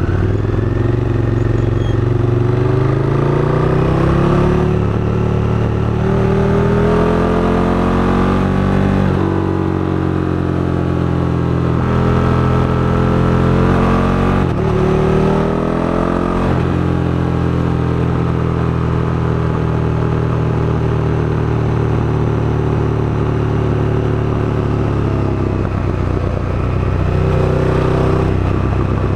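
KTM 1290 Super Duke GT's V-twin engine under way. Its pitch climbs in several pulls through the gears over the first half and falls away around the middle. It then holds a steady note for about ten seconds before climbing again near the end.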